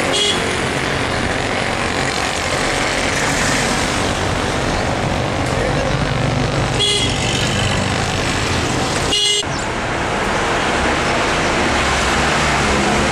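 Street traffic and engine noise heard from a moving vehicle driving through town, with brief vehicle horn toots near the start, about seven seconds in and about nine seconds in.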